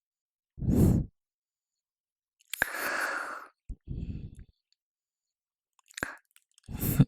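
A man's close-miked breathing, with a long sigh-like exhale and a few short low hums, broken by a couple of soft mouth clicks.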